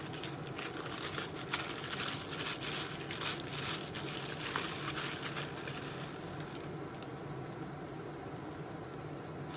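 Rustling and crinkling as a small cosmetics pouch and its packaging are handled and opened, for about the first six seconds, after which it settles to quiet room tone.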